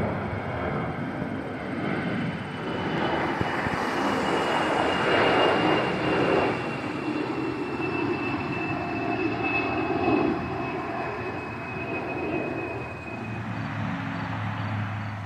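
A jet airliner passing: a continuous engine rush with a high whine that slowly drops in pitch, loudest through the middle and fading near the end.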